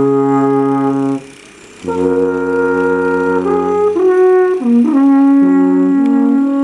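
Several alphorns played together in harmony: long held notes, a brief break about a second in, then a slow melody that steps from note to note.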